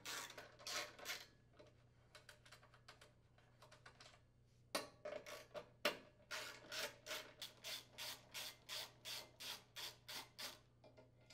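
Socket ratchet clicking faintly as it unthreads bolts from the snowblower's plastic muffler cover, first in scattered strokes, then in an even run of about two strokes a second.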